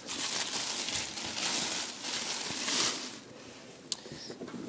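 Thin plastic bag crinkling and rustling as it is pulled open by hand for about three seconds, then dropping to faint rustles with a single small click near the end.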